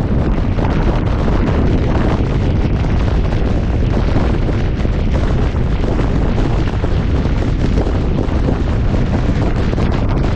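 Wind buffeting the microphone of a camera mounted on a moving fire engine's roof at highway speed: a loud, steady, heavy rush strongest in the low end, with no siren.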